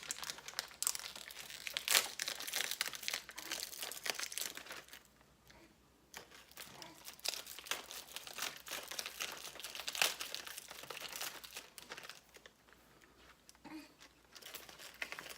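A snack package crinkling and rustling as it is handled and opened, with two brief lulls along the way.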